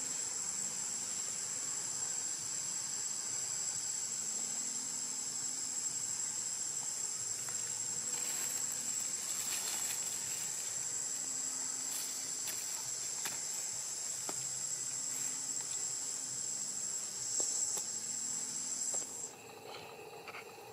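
A steady, high-pitched insect drone from the surrounding forest that swells briefly near the end and then cuts off suddenly.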